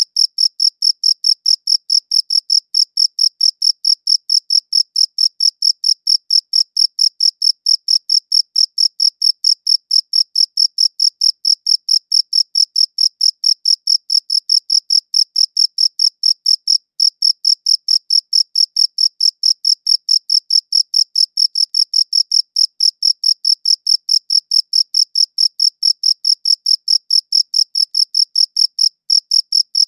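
A cricket chirping in an even, unbroken rhythm of about three high-pitched chirps a second.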